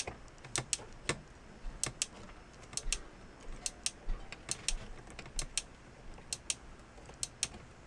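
Small sharp clicks from the volume control and plastic knob of a vintage Toshiba transistor radio being worked back and forth to spread freshly sprayed contact cleaner through a scratchy control. About twenty clicks at uneven spacing, often in pairs.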